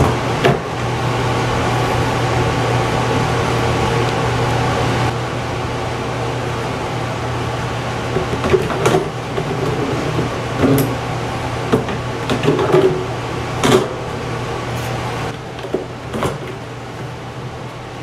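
Wire storage baskets being lifted out of a fridge/freezer's compartments, clinking and knocking against the cabinet several times. Under it runs a steady hum that is louder for the first few seconds and then drops.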